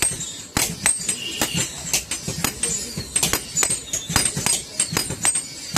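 Hand hammer blows striking hot iron on an anvil, about three a second, each with a high metallic ring.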